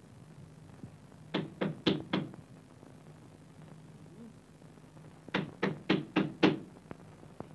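Knocking on a door: four knocks, then after a pause of about three seconds a second run of about six knocks.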